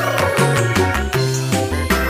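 Upbeat background music with a steady beat and a bouncing bass line.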